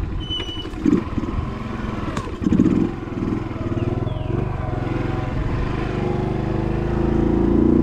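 Small single-cylinder four-stroke motorcycle engine (a Honda Pop) running under way, with two short louder bursts early and the engine growing louder over the last couple of seconds.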